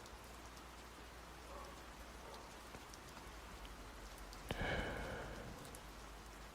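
Light steady rain with faint scattered drop ticks. About four and a half seconds in, a sharp click is followed by a brief, louder sound lasting about a second.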